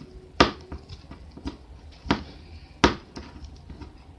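Scissors snapping shut in a few separate sharp clicks, three of them loud, as they cut and rip at a Skechers shoe's tough material without getting far.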